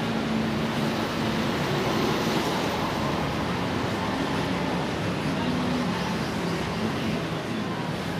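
Steady noise of road traffic, an even rushing hum with no single event standing out.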